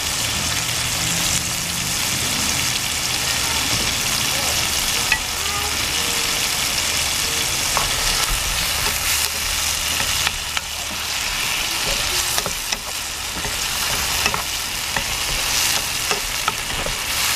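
Tomatoes, onions and garlic sizzling in oil in a nonstick pan, stirred with a wooden spatula, with a few short clicks of the spatula against the pan.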